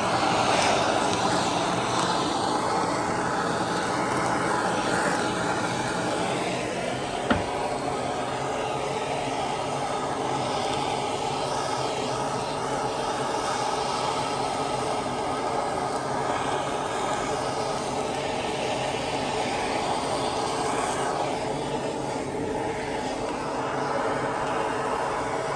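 Handheld gas torch burning steadily with its trigger locked on, a constant roaring hiss of the flame as it browns the surface of a beef roast. A single sharp click about seven seconds in.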